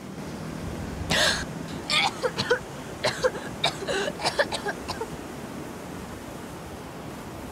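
A person coughing: one hard cough about a second in, then a run of short coughs and gasps that die away after about five seconds.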